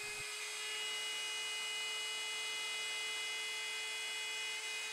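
CNC router spindle running with a steady high whine while its 1/4-inch end mill cuts a profile through bamboo plywood.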